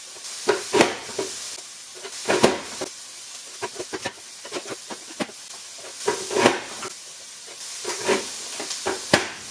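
Plastic Nicer Dicer Chef vegetable cutter being pressed shut again and again, the lid clacking down as red pepper pieces are pushed through its 12x48 mm blade grid: a series of sharp clacks with lighter ticks between. Food sizzles steadily in a frying pan underneath.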